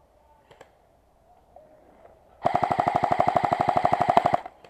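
Airsoft gun firing one full-auto burst of about two seconds, about fifteen shots a second, that stops suddenly.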